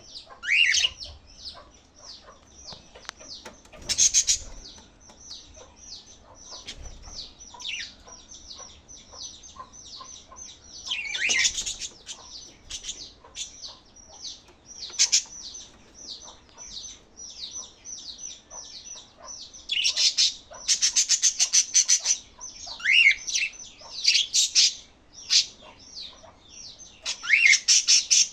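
Budgerigars chirping and chattering in a steady stream of rapid, short, high calls, with louder bursts of sharp chirps every few seconds.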